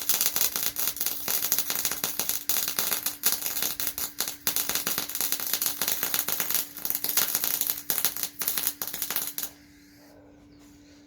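Arc welding: the welding arc makes a dense, crackling sizzle that stops suddenly about nine and a half seconds in, over a steady hum.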